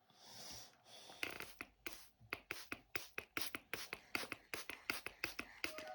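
Pocket-knife blade being stroked across a water-wetted whetstone: quick, regular scraping strokes, about five a second. Music comes in near the end.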